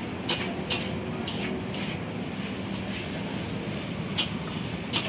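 Knife chopping seafood on a thick wooden chopping block: several sharp knocks, a cluster in the first two seconds and two more near the end, over a steady rushing background noise.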